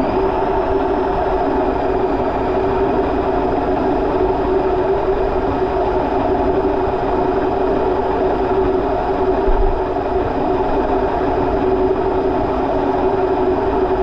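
Indesit washing machine on its 1200 rpm spin, heard from inside the drum. The motor's whine levels off right at the start and then holds at one steady pitch over a dense rushing noise from the spinning drum.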